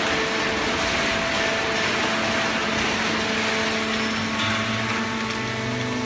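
Hydraulic horizontal paper baler and its chain feed conveyor running: steady machine noise with a hiss and a constant hum, a lower hum joining about four seconds in.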